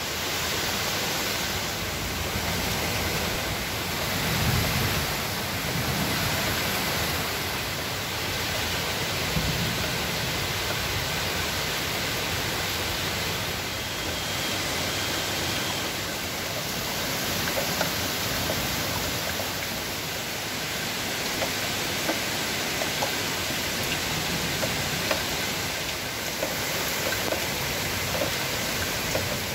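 Torrential rain pouring steadily as a dense hiss, with low rumbles a few seconds in and again around ten seconds in.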